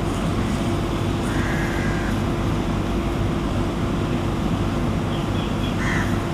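Steady background rumble with a constant low hum and a faint high note twice.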